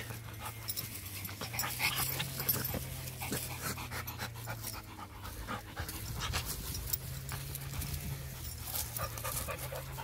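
A Rottweiler panting close up as it rolls on its back in grass and dry leaves, with many short crackles and rustles from the leaves under it.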